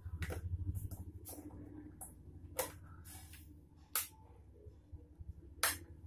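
Scattered sharp clicks and knocks from a hair dryer's plug being pushed into a wall socket and the dryer being handled, over a low rumble that fades away. The dryer is not yet heard running.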